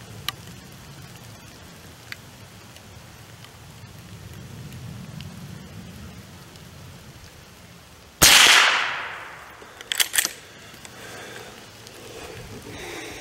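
A single shot from an FN Browning Trombone .22 pump-action rifle about eight seconds in, dying away over about a second. About two seconds later come a few quick metallic clicks as the pump slide is worked to eject the case and chamber the next round.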